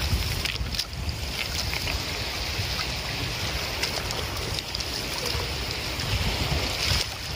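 Wind buffeting the microphone over a steady rush of shallow water, with splashing as a fishing net is dragged through it.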